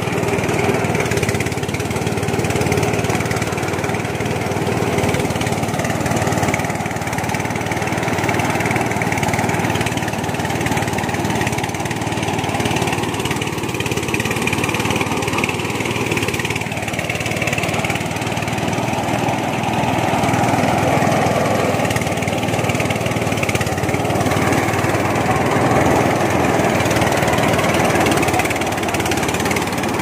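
Small engine running steadily and loudly, without letting up.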